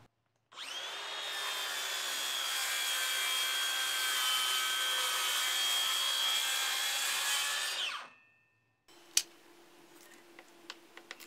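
Circular saw running through a lengthwise cut along a wooden board, with a steady high whine, stopping abruptly after about seven and a half seconds. A few light knocks follow near the end.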